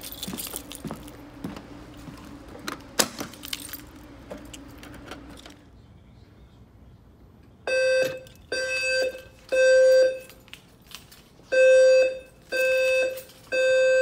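Voice-evacuation fire alarm speakers of a Notifier NFS2-640 system sounding the evacuation tone in the temporal-three pattern: a steady buzzy tone in three short blasts, a pause, then three more. This is the alert that comes before the spoken evacuation message. Before the tones, walking footsteps with light clicks.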